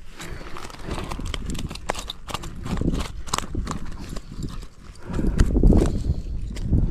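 Irregular clicks and knocks of handling noise while a squirming trout is held and unhooked, with a louder low rumble from about five seconds in.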